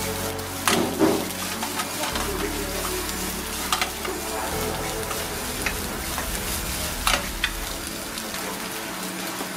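Fried rice sizzling in a hot nonstick frying pan as it is stirred and scraped with a wooden spatula, with a few sharp clacks of spatula and pan against each other.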